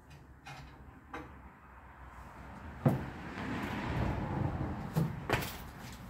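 Clanks and thumps of a man climbing down out of a steel pickup truck bed. There is one sharp metal knock about three seconds in, then a couple of seconds of rumbling, and two more knocks near the end.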